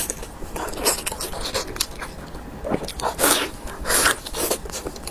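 A person eating close to the microphone: irregular bites and chewing noises, with two louder bursts about three and four seconds in.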